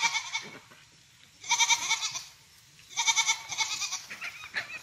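Goats bleating: a run of high-pitched bleats, each about half a second long and spaced a second or so apart.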